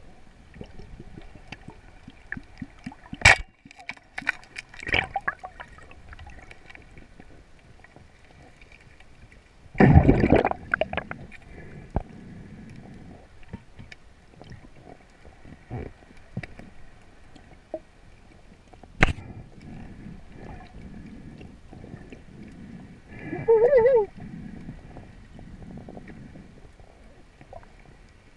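Underwater sound from a diver's camera: low water movement, sharp clicks about three and nineteen seconds in, and a short, loud rush of water about ten seconds in. Near the end there is a brief warbling sound.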